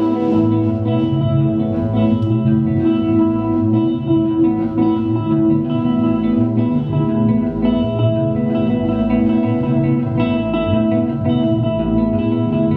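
Indie rock band playing an instrumental passage without vocals: electric guitars run through effects pedals ring out in sustained, echoing chords over a steady low end.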